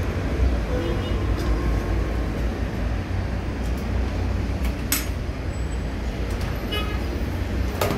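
Steady low background rumble, with a sharp click about five seconds in and a few fainter clicks near the end.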